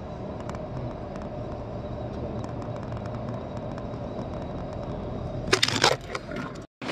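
Steady road and engine noise inside the cabin of a moving vehicle. About five and a half seconds in, a few loud crackles and knocks as the camera is handled against the door trim, then the sound cuts off abruptly.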